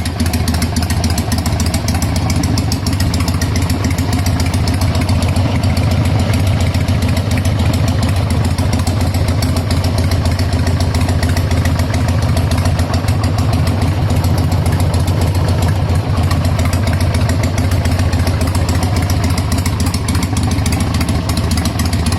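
A 2003 Harley-Davidson Sportster 100th Anniversary Edition's air-cooled V-twin engine idling steadily.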